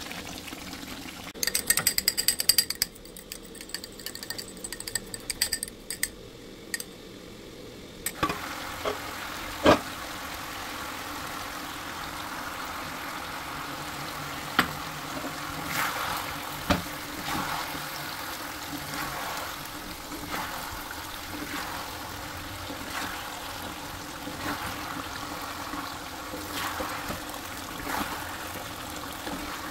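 Chicken cooking in a pan: a steady sizzle with a spatula stirring and knocking against the pan now and then. A burst of rapid clicking comes in the first few seconds.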